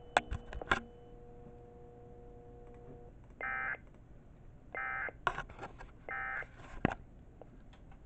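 Sage EAS ENDEC sending the EAS end-of-message (EOM) code: three short, identical bursts of buzzy data tone about a second and a half apart, the signal that closes the alert. A few sharp clicks sound near the start and between the later bursts.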